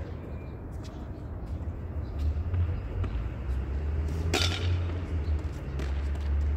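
A ball knocking against a wall and being hit back: a few sharp knocks at uneven intervals, the loudest a little over four seconds in, over a steady low rumble.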